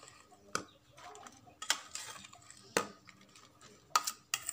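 Metal spoon clinking and scraping against a stainless steel bowl while working through a soft bait mixture. There are about five sharp clinks, roughly one a second, with two close together near the end.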